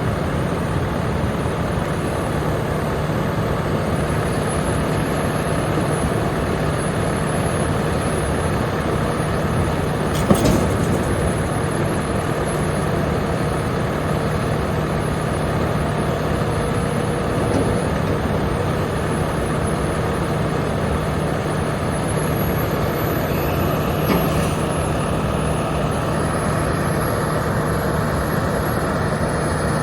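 John Deere 345G LC excavator's Isuzu 6HK1 six-cylinder diesel engine running steadily, with a faint high whine over it. A single sharp clunk sounds about ten seconds in, and a lighter one near the end.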